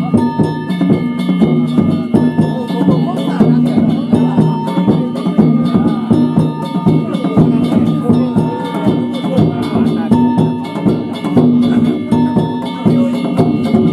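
Danjiri festival music: a drum and hand-struck metal gongs beaten in a fast, unbroken rhythm, the gongs ringing over the drum, with voices of the crowd mixed in.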